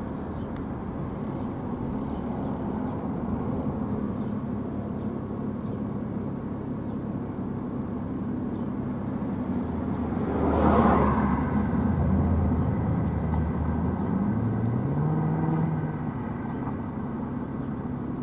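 Street traffic under a steady low engine hum. A car passes close by about ten seconds in, its noise swelling and fading, and near the end another vehicle accelerates with a rising engine note.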